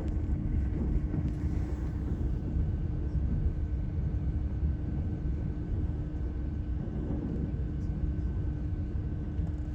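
A motor running steadily: a loud, low rumble with a constant droning hum.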